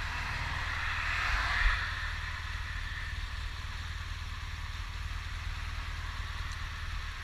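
BMW touring motorcycle's engine running at low revs while crawling in queued traffic: a steady low rumble, with a hiss of wind and traffic over it that swells briefly a second or two in.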